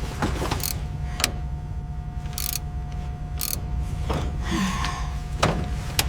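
Heavy machinery running with a steady low rumble and a faint steady tone, broken by several sharp metallic clanks and two short hisses about two and a half and three and a half seconds in.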